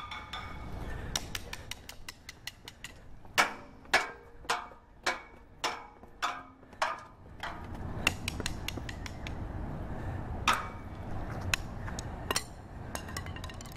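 A stick striking metal pipe railings: a quick run of clicks, then a string of single strikes about two a second, each with a short metallic ring, and a few more strikes near the end over a steady low background noise.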